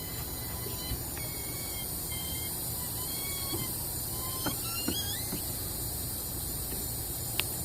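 A jack-operated pickup-bed crane lowering a generator: a few light clicks and creaks over a steady hiss, with sharp clicks about four and a half, five and seven and a half seconds in.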